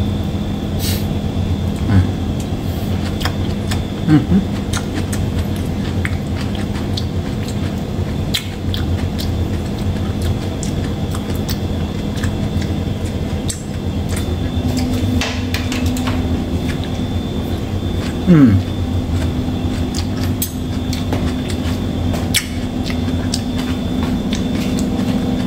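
Steady machine hum, its pitch stepping up slightly about halfway through, with scattered light clicks and a few short knocks.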